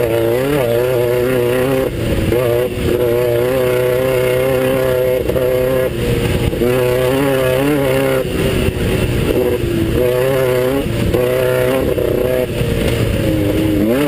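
Class 9 off-road race car's engine running hard under load. The revs dip and climb again about a second in, around the middle, and near the end.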